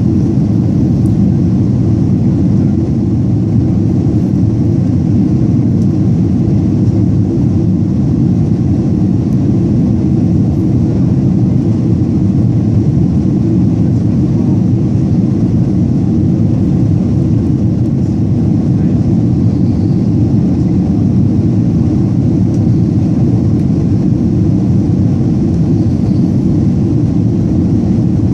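Airliner cabin noise after take-off: a steady, even low rumble of jet engines and rushing air, unchanging throughout.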